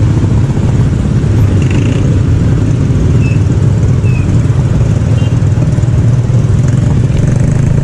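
Many motorcycle engines idling and pulling away together, a steady low drone of traffic moving off.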